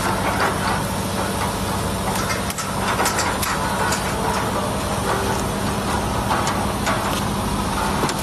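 Tape-roll feeding system of an automatic shrink-sleeve wrapping machine running: a steady motor hum under the clatter of rolls of tape on the stainless steel rotary feeding table and conveyor, with scattered sharp knocks as rolls bump together.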